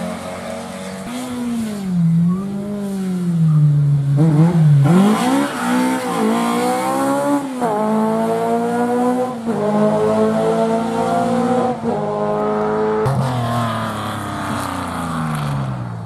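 Rally car engine revving up and down through a corner, then accelerating hard through the gears, its pitch climbing and dropping with each of several quick upshifts, and falling away as the car drives off near the end.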